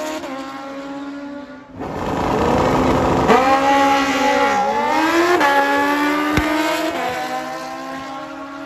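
Sport motorcycles running flat out down a drag strip, their high-revving engines whining, the pitch climbing and then dropping back at each gear change. The sound dips briefly about two seconds in, then comes back louder.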